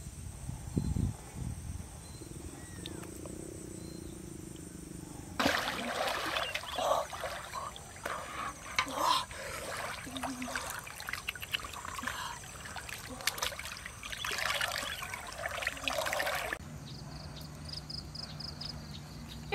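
Water sloshing and splashing as a person wades through waist-deep pond water, for about eleven seconds in the middle. Before that it is quiet apart from a few low thumps and faint high chirps, and it goes quiet again near the end.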